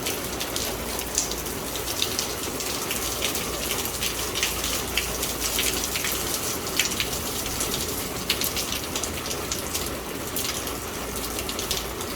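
Heavy thunderstorm rain pouring down: a steady rush of water with many sharp individual drop hits close by.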